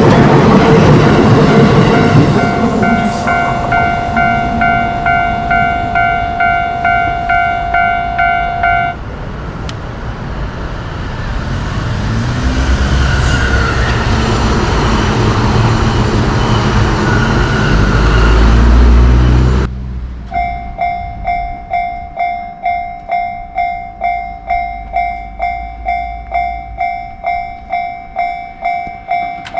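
Trains running past Japanese level crossings, with the electronic crossing warning bell dinging about twice a second. The bell stops about a third of the way in while a train rumble builds and grows loud. It cuts off abruptly near two-thirds of the way, and a crossing bell then rings steadily to the end.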